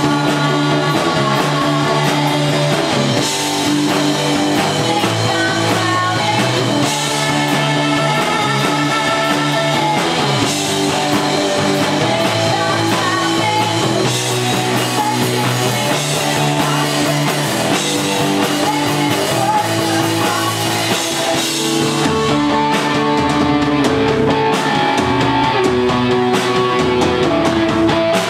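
Live rock band playing a song: electric guitar, bass guitar and drum kit, with a woman singing lead.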